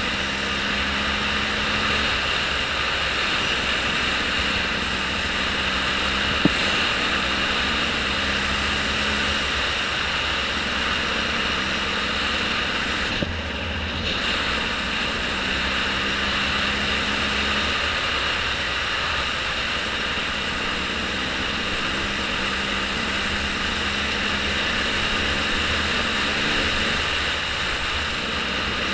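Steady engine drone with a rushing noise, as from a moving vehicle, with a brief dip in the hiss about thirteen seconds in.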